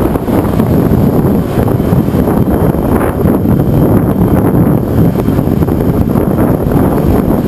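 Ride-on miniature tram running along its narrow track: a steady low noise of the wheels rolling, mixed with wind buffeting the microphone mounted on the moving tram.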